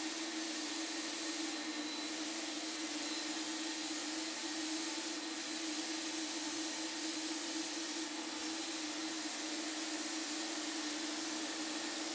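HVLP turbine running with a steady whine and rush of air, while the Apollo 7700 spray gun hisses as it sprays a fine, airbrush-like pattern. The highest part of the hiss drops out briefly about three times.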